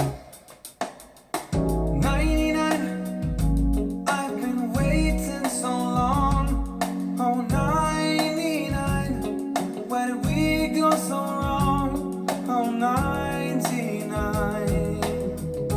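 Jazz-pop song with a male voice singing over guitar, bass and drums. The music drops almost to nothing for about a second and a half at the start, then the full band comes back in.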